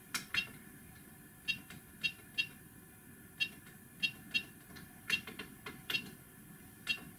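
Control-panel buttons on an XYZprinting da Vinci 1.0 Pro 3D printer pressed repeatedly to scroll through menus. Each press gives a short, sharp, high click, often in quick pairs, about fifteen in all.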